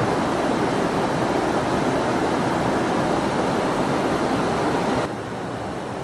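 Steady rushing cabin noise of a KC-10 Extender tanker in flight, heard from inside the boom operator's station. It drops to a quieter level about five seconds in.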